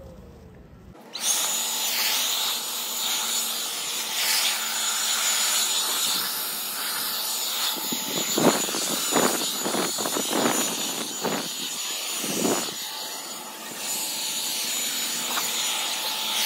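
Corded electric leaf blower spinning down with a falling whine, then switched back on about a second in and running steadily: a loud rush of air with a thin high whine, blowing grass clippings off the pavement. Several short louder rushes come in the middle.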